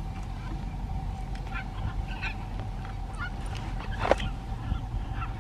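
Blue-and-yellow macaws squawking: a scatter of short harsh calls, with one much louder squawk about four seconds in.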